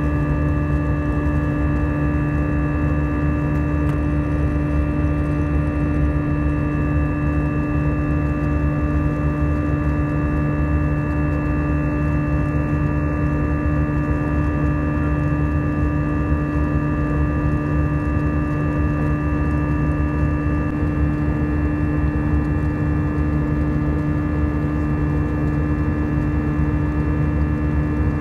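Steady cabin noise of an Airbus A319 jet airliner in flight, heard from inside the cabin: a low rumble with several steady humming tones, unchanging throughout.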